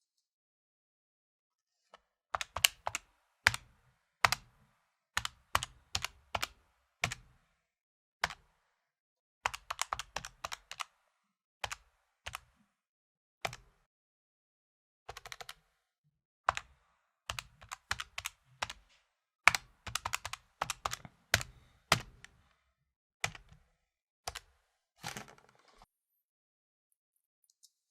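Electronic calculator keys tapped by finger: sharp plastic button clicks in short irregular runs with brief pauses between them. They start about two seconds in and stop about two seconds before the end.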